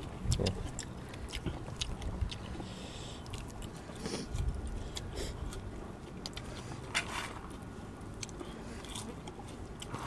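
People eating by hand close to the microphone: chewing and mouth sounds with scattered small clicks.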